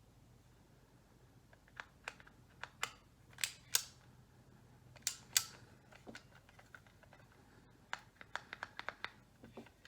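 Scattered clicks and taps of a small plastic toy buckle and its packaging being handled, with a quick run of clicks near the end.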